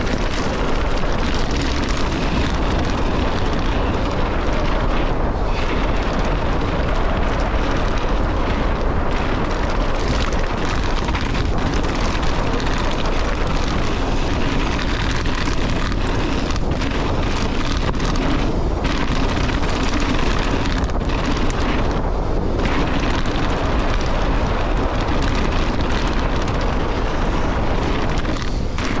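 Loud, steady rushing noise of a mountain bike descending fast on a loose gravel and shale trail: knobbly tyres rolling over stones, with wind buffeting the microphone.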